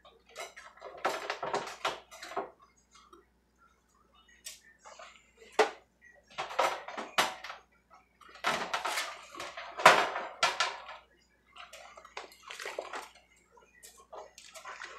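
Dishes being hand-washed in a sink of soapy water: water sloshing and swishing as things are scrubbed, with scattered knocks and clinks of dishes, the sharpest about five and ten seconds in.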